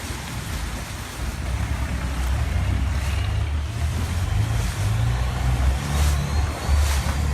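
Tour boat's engine running steadily as the boat travels along the canal, with wind and water noise; it grows louder about a second in.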